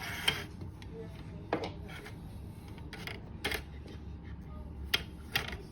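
A handful of light, sharp metallic clicks and taps, about five, spread unevenly over a steady low hum, from small tools and parts being handled during soldering work.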